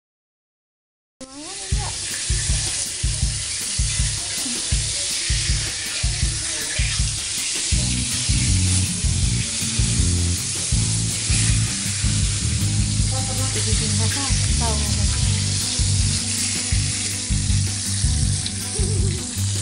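Dori fish fillet frying in hot oil in a wok, a steady sizzle starting about a second in, with occasional scrapes of a spatula. Background music with a steady low beat runs underneath.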